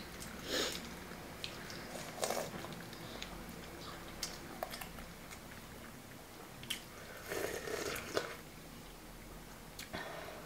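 Eating at the table: chewing soft steamed buns, a few sips and slurps of soup from a bowl, and light clicks of a spoon against a bowl.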